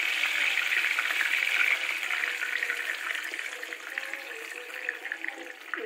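Water poured from a cup into a hot, oiled kadhai of stuffed tomatoes, setting off a hissing sizzle that slowly dies down.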